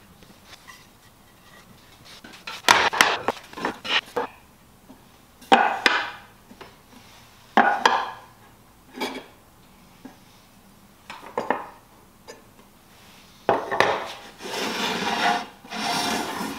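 Wooden boards knocking and clattering on a wooden workbench as dovetailed box sides are fitted together by hand, in short bursts every couple of seconds. Near the end comes a longer scraping, as the assembled frame is slid across the bench top.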